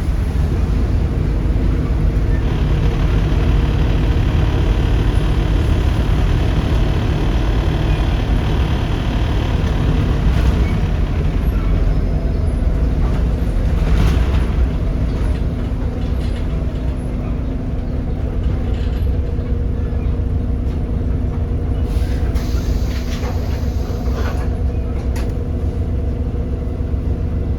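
Volvo B7RLE bus's 7.3-litre Volvo D7C diesel engine running under way, heard on board as a steady low rumble. A high whine rides over it for several seconds early on, and the body gives a few knocks and rattles in the second half.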